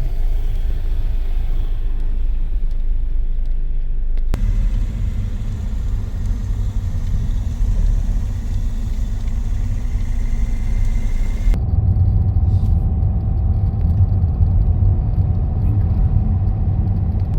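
Steady low rumble of a moving vehicle, changing abruptly twice, and in the last part a faint steady hum joins it.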